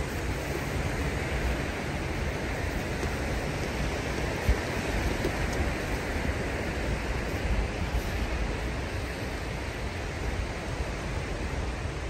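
Steady wash of sea surf on a sandy beach, with a low rumble of wind on the microphone and one brief thump about four and a half seconds in.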